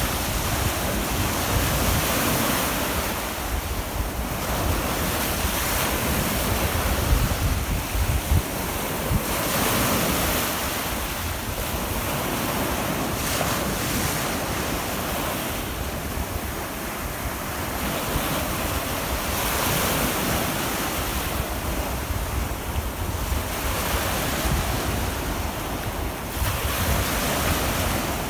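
Small surf breaking and washing up the beach at the water's edge, the hiss swelling and easing every several seconds as each wave comes in. Wind buffets the microphone with a low rumble throughout.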